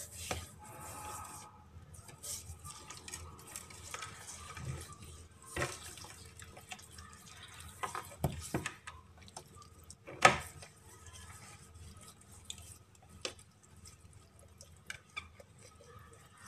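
Hands rubbing salt into the skin of a whole raw chicken: irregular wet handling sounds with scattered sharper knocks and taps, the loudest about ten seconds in.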